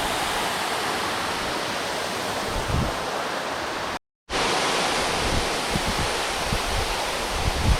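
Steady rush of water pouring down a waterfall. About four seconds in there is a brief dropout where the footage is cut, and after it the rush continues with occasional low rumbles.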